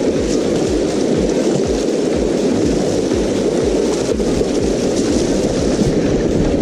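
Fast shallow river rushing over rocks, a loud steady wash of water noise, with irregular low thumps underneath.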